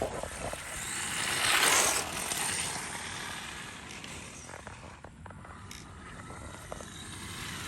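Arrma Mojave Grom RC car driving over the ground, its electric drivetrain and tyres swelling louder about one and a half to two seconds in, with a few sharp clicks and knocks in the middle.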